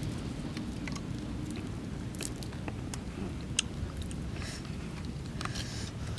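Close-up eating sounds of grilled fish: scattered crisp crackles and clicks as the charred fish is picked apart and eaten, over a steady low rumble.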